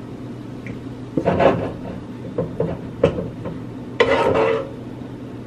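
A cooking utensil knocking and scraping in a pan of food: a scrape about a second in, a few light knocks, then a longer, louder scrape near the end.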